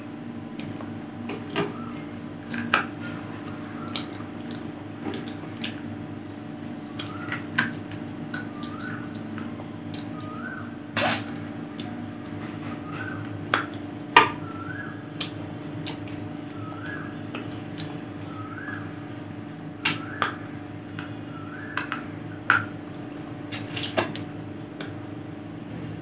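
Eating by hand: irregular sharp crunches and clicks as chicken bones are chewed and fingers work food on a plate, the loudest about 11 and 14 seconds in. Under them runs a steady low hum, with a faint short rising chirp repeating about once a second.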